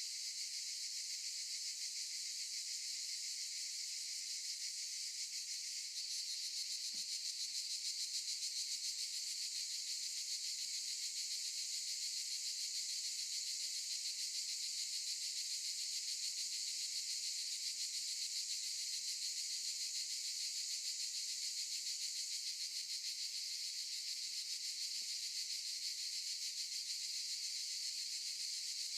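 Cicadas in a continuous, high-pitched buzzing chorus that gets slightly louder about six seconds in.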